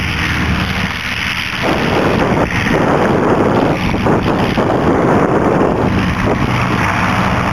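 Wind buffeting the microphone, loud and gusty, with the steady drone of a Rutan Cozy III's pusher propeller engine under it. The engine is clearest for the first second and a half, then the wind noise covers it.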